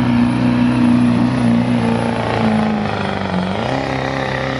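Modified 4x4 diesel pickup engine at full throttle pulling a weight-transfer sled, a loud steady drone. About three and a half seconds in its pitch drops and settles lower as the truck comes to a stop at the end of the pull.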